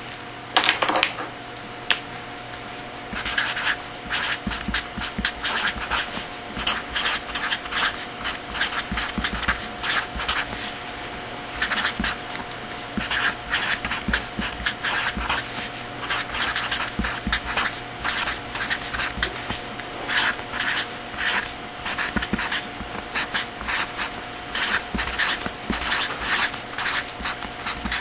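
Hand-writing strokes on a writing surface: many short scratchy strokes in quick runs with brief pauses, over a faint steady hum.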